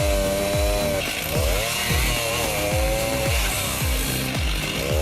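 Chainsaw running at high speed, its pitch sagging and recovering as it cuts into wood, over background music with a steady thumping bass beat.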